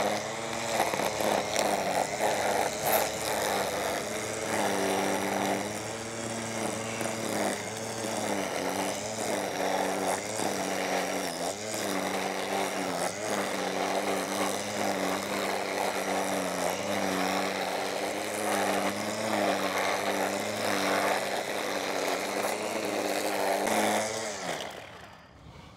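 Small petrol engine running at varying revs, then cut off and winding down near the end.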